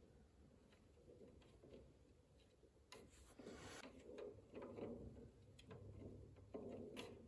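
Faint scraping and light tapping of a wooden stir stick stirring thick wood stain in a metal gallon can, quiet at first and more frequent from about three seconds in.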